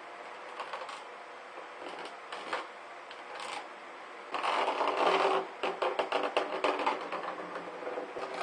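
Handling noises from work on a homemade project: scattered clicks and short rustles, then a louder rustle about four seconds in, followed by a few seconds of rapid crackling clicks.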